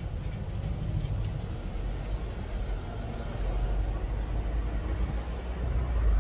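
Street traffic: cars passing by, over a steady low rumble.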